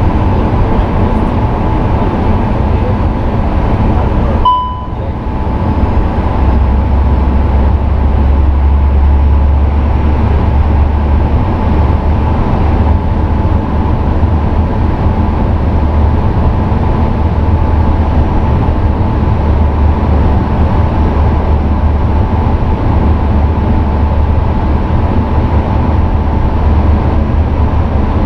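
Steady flight-deck noise of a Sukhoi Superjet 100 on approach: a constant hum of airflow and engines, with faint steady tones. About four and a half seconds in the sound briefly dips with a short tone, and from about six seconds on a deeper low rumble joins in.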